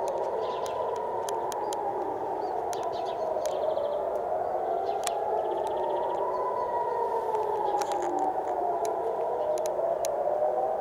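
Several civil defense air raid sirens wailing together, their pitches slowly rising and falling out of step with one another: the alert for incoming missiles.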